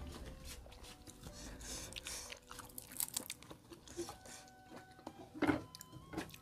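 Close-miked eating: crunchy chewing and biting of food with irregular small clicks, with a louder crunch about five and a half seconds in.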